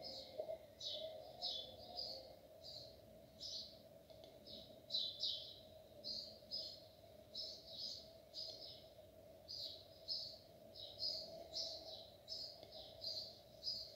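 Pencil lead scratching across paper in short sketching strokes, about two a second, over a faint steady hum.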